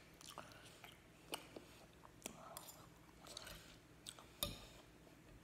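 Faint chewing with soft mouth clicks while eating, and a few small taps, the loudest about four and a half seconds in.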